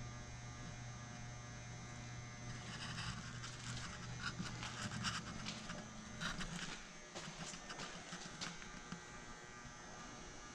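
A steady low electrical hum that cuts out about two-thirds of the way through, with scattered light clicks and scuffs over the middle stretch.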